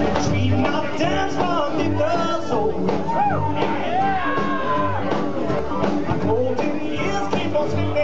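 Live rock and roll band: a man singing over electric guitar, bass and drums, with a low bass note recurring about every second and a half.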